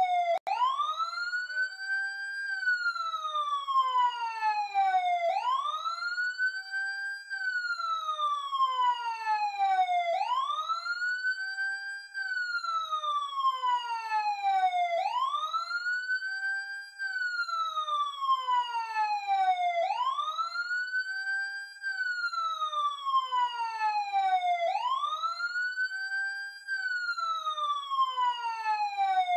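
Emergency siren wailing: the pitch climbs quickly over about two seconds, then falls slowly over about three, the cycle repeating about every five seconds.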